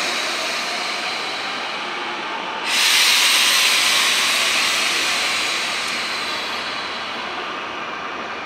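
A JR 521 series electric train pulling out of the station, its IGBT-VVVF inverter giving a faint rising whine under a steady hiss. About three seconds in, a loud burst of compressed-air hiss starts suddenly and slowly fades.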